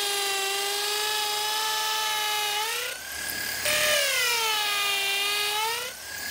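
Electric drill boring into a wooden post with a spade bit: a steady motor whine that sinks in pitch while the bit is cutting and climbs again as it eases off. It breaks off about three seconds in and starts up again at a higher pitch a moment later.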